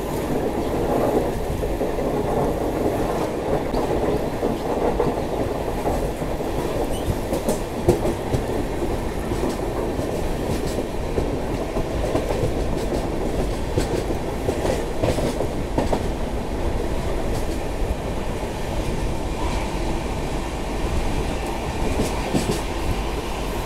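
Steady rumble of a moving express train heard from inside an air-conditioned passenger coach, with a few faint clicks now and then.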